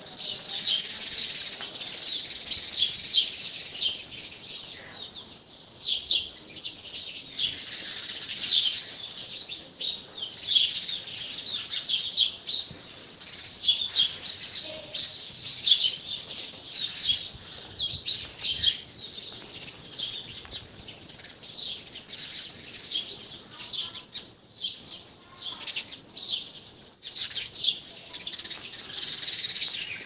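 A graphite pencil scratching across paper, recorded close: quick runs of short strokes with brief pauses between them.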